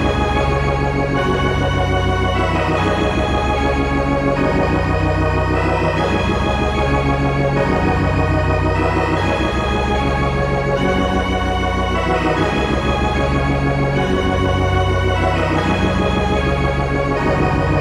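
Dungeon synth music: sustained, organ-like synthesizer chords over a low bass line, the harmony shifting about every two seconds.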